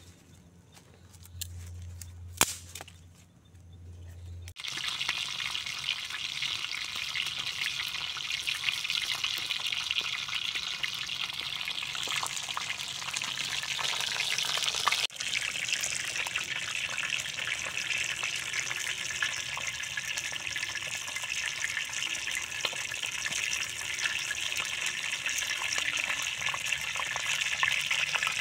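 Whole fish frying in hot oil in a wide flat pan over a wood fire, a dense, steady sizzle and crackle that starts about four seconds in. Before it there is a quieter stretch with a low hum and a single sharp snap.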